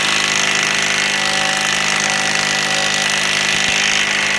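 Cordless impact wrench running continuously on a lug nut, drawing a new wheel stud into a front wheel hub over stacked washers.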